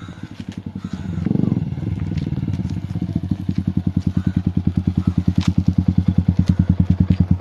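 Sport motorcycle engine running close by, its exhaust pulsing evenly at about ten beats a second and growing louder as the bike rolls up and stops.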